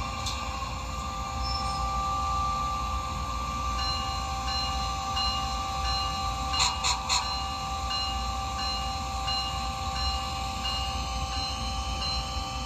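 Sound-equipped model Amtrak ACS-64 electric locomotive running: a steady electric whine and hum with a low rumble, joined about four seconds in by a bell-like tone repeating roughly every second. Three short hissing bursts come about seven seconds in.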